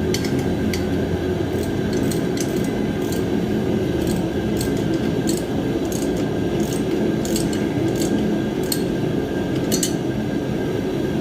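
Scattered metallic clicks and clinks of a wrench tightening 10 mm bolts on a steel welding cart, a few irregular ticks a second. They sit over a steady low rumble that runs throughout.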